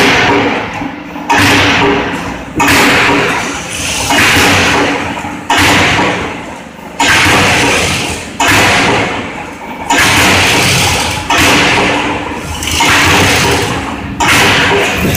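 CNC hydraulic punching machine (IPM NCSK125_D) punching holes in a metal sieve plate at a steady pace, about one stroke every second and a half. Each stroke is a sudden hit followed by a rushing noise that fades before the next.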